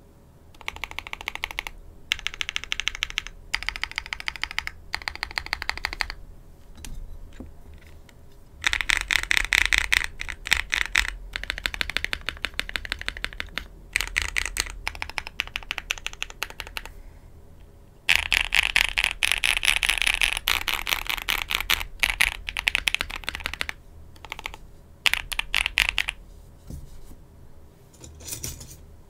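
Typing on a PE-foam-modded Kbdfans Anode aluminium o-ring-mounted mechanical keyboard. It has lubed Darling Frankenswitches (Kailh Pro Burgundy stems in Gazzew Bobagum housings, 62 g springs) and GMK Darling keycaps. The keys clack in short bursts with pauses, and two longer runs of fast typing come about a third of the way in and again past the middle.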